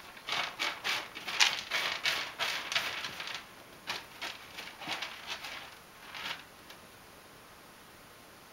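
Ragdoll cat pawing and scratching at the litter in a covered litter box: a run of quick, gritty scrapes, about two or three a second, that stops about six and a half seconds in.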